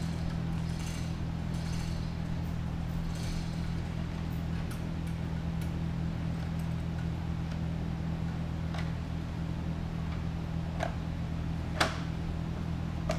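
Handling noise as wiring is threaded through the Power Pole blade and the plastic anchor light housing is fitted: soft rustling early on, then a few sharp clicks in the second half, the loudest about twelve seconds in, as the housing is clipped in place. A steady low hum runs underneath.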